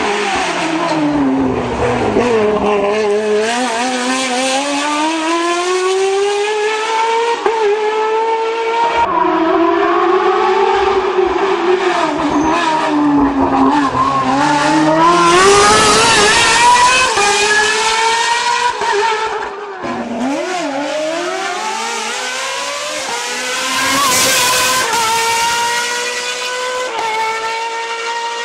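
Ferrari 360 N-GT's Michelotto-tuned 3.6-litre F131 V8 racing engine at full throttle, its high-pitched note climbing through the gears and dropping sharply on braking and downshifts, again and again. A brief burst of hiss comes about three quarters of the way through.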